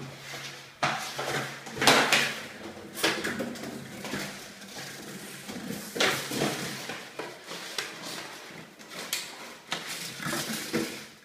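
Empty large plastic water bottle knocked, pushed and dragged across a tiled floor by a dachshund puppy: irregular hollow plastic clatters, crinkles and scrapes, loudest about two seconds in.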